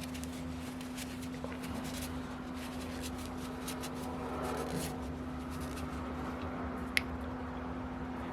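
Quiet workbench handling: light rubbing and scraping of small tools and engine parts over a steady low hum, with one sharp click about seven seconds in.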